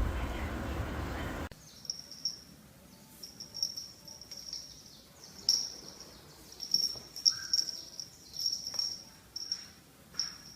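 A steady rumbling noise that cuts off suddenly about a second and a half in, followed by crickets chirping in high, uneven bursts, with a few faint clicks.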